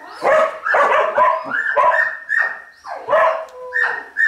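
Dog barking rapidly and repeatedly, about two to three barks a second, during an agility run.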